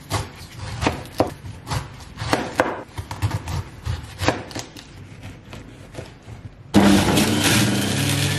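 A large kitchen knife cutting through a whole pineapple in a series of sharp chopping strokes. About seven seconds in, an electric centrifugal juicer switches on with a sudden loud, steady motor hum and grinding as fruit is pushed through it.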